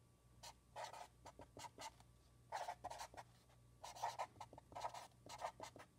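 Black felt-tip marker writing on lined notebook paper: a faint series of short, irregular strokes.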